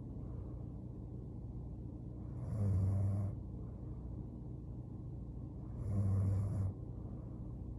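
A sleeping young woman snoring: two snores about three seconds apart, each under a second long, with a low buzzing tone.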